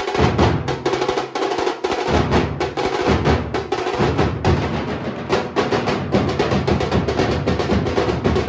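A live Maharashtrian procession 'banjo' band playing: fast, dense drumming with deep drum beats, over held instrument notes.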